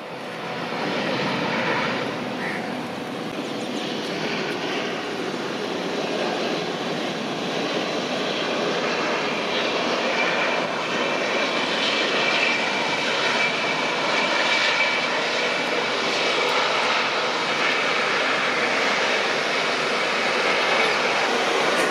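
Jet engines of an Airbus A320-family airliner running as it rolls along the runway after landing: a steady rushing noise that slowly grows louder, with a faint high whine about halfway through.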